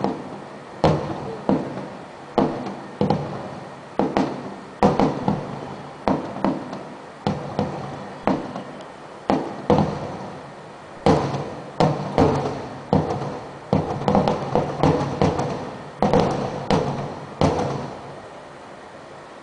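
Aerial firework shells bursting in a quick irregular series of more than twenty bangs, each followed by a rolling echo; the bangs stop near the end.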